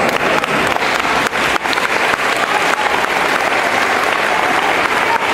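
Audience applauding, many hands clapping together in a dense, steady patter.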